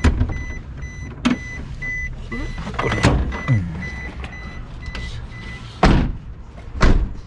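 Suzuki Every DA64V van's warning beeper sounding a rapid, repeated high beep while the driver's door stands open with the key in the ignition. The beeping stops about two-thirds of the way through, and two loud clunks of handling come near the end.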